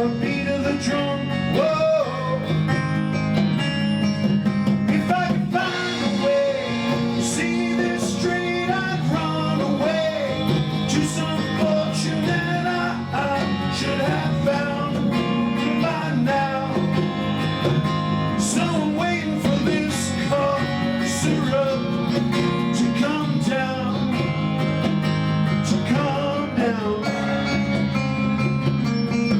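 Rock band music led by guitars, with drum and cymbal hits, playing an instrumental passage.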